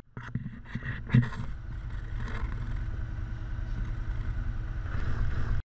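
Can-Am Commander side-by-side's V-twin engine running as it drives up a gravel track, growing louder as it approaches, with a single sharp knock about a second in.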